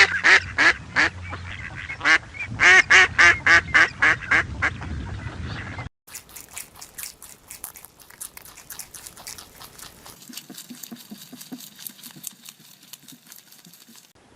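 Duck quacking in two quick runs of loud calls. After about six seconds it gives way to a quieter stretch of rapid faint clicking.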